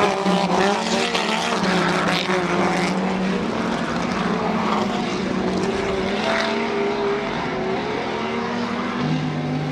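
Race car engines running hard as TC 4000 touring cars pass, several engine notes overlapping and shifting in pitch; about nine seconds in a lower engine note takes over.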